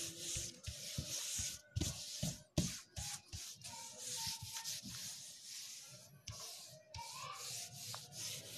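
A hand rubbing and sliding over a sheet of paper, in irregular scraping strokes with a few light knocks.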